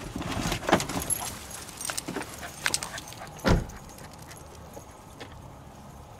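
Dogs let loose and moving about, with scattered jingling clicks in the first few seconds and one dull thump about three and a half seconds in.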